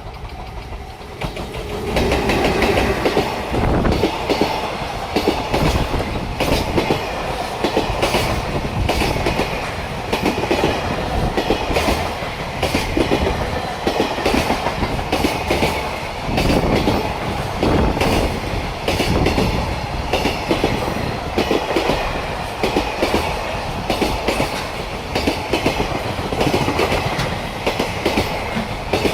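A JR Freight EF210 electric locomotive and its long train of Koki container wagons pass at speed. The wheels beat out a loud, powerful clickety-clack over the rail joints, building up over the first two seconds and then running on steadily as wagon after wagon crosses.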